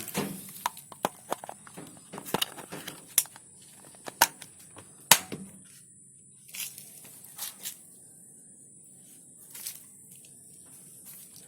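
Irregular sharp clicks and knocks from handling the washing machine as it is readied for a test: a quick run of them over the first six seconds, then a few scattered ones, over a faint steady high hiss.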